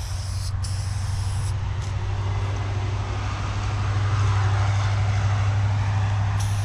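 Low, steady rumble of a heavy vehicle or train engine that swells to its loudest about four seconds in. Short bursts of hiss from an aerosol spray-paint can come at the start and again near the end.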